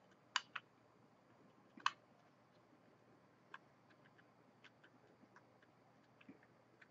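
Small screwdriver driving a tiny screw into a metal laptop hard-drive caddy: a few sharp metal clicks in the first two seconds, the loudest about two seconds in, then faint scattered ticks as the screw is turned.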